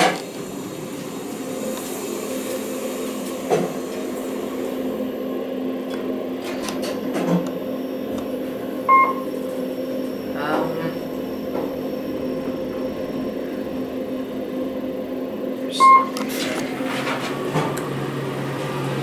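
Hotel passenger elevator car travelling between floors: a steady hum, a button click at the start, and two short electronic beeps from the car, one about halfway through and one near the end.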